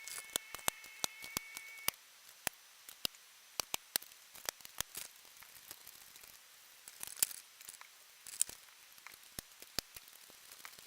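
A thread tap re-cutting a 3/8-16 threaded hole in a bandsaw gearbox housing out to M10: irregular sharp metal clicks and a few short scrapes as the tap is worked.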